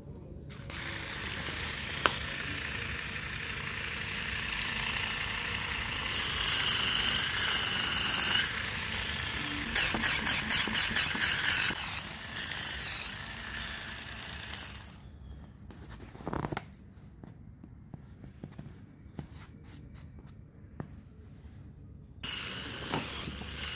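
Rechargeable electric foot callus remover running, its small motor whining high as the spinning abrasive roller grinds dead skin off a heel, louder and pulsing in stretches as it is pressed and stroked. It falls away about two-thirds through and comes back near the end.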